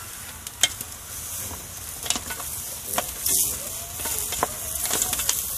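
Chunks of kampung chicken sizzling as they fry in a metal pot, stirred by hand with a wooden spatula that knocks against the pot a few times. This is the browning stage, before the water goes in.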